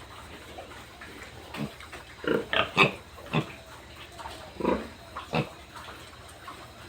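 Pigs grunting in a series of short calls, the loudest cluster about two to three seconds in and more around five seconds.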